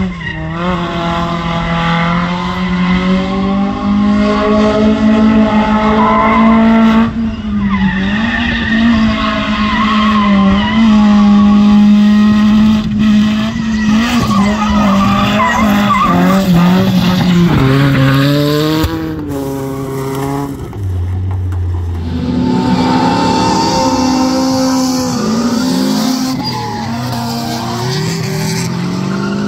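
Drift car engine held at high revs with the revs bouncing up and down as the car slides, tyres squealing and skidding. About two-thirds of the way through the revs drop briefly to a low steady note, then climb again as it gets back on the throttle.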